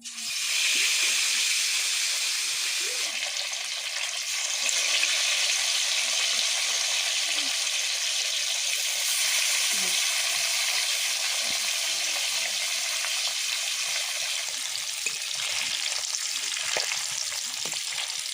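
Pieces of rohu fish frying in hot oil in a kadai: a loud sizzle starts suddenly as the fish goes in and carries on steadily.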